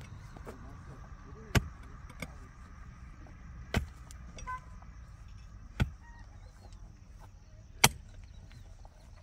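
A series of sharp knocks, one about every two seconds, with a low steady background between them.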